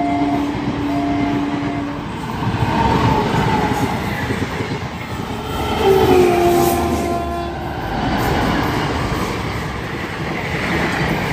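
Trains passing close at speed: a steady rumble and wheel clatter. A horn is held for about the first two seconds, and another horn blast about six seconds in drops in pitch as the electric locomotive goes by.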